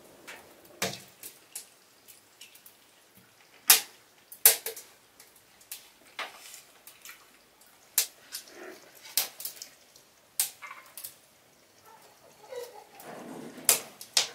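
Metal forks and knives clicking and scraping on wooden plates while eating, as irregular sharp clicks, about one a second.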